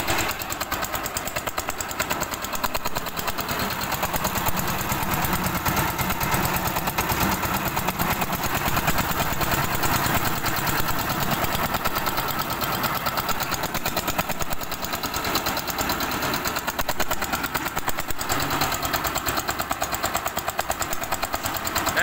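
Small single-cylinder diesel engine of a concrete mixer running steadily, with a fast, even firing beat.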